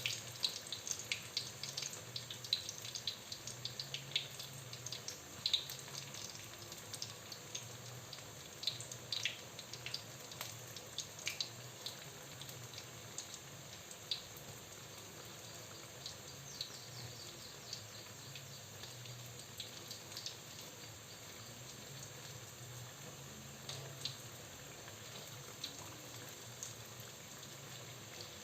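Flour-battered tempe frying in hot oil: a steady sizzle with scattered crackling pops, thicker in the first half and thinning out later.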